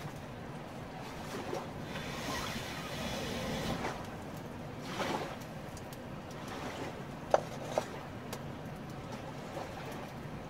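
Steady outdoor rush of river water and wind, swelling a couple of times, with two sharp short clicks in quick succession about seven seconds in.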